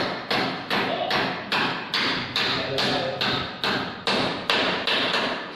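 Hammer blows in a steady run, about three a second, each a sharp knock with a short ring, as a hammer drives at the base of a wooden stair railing post.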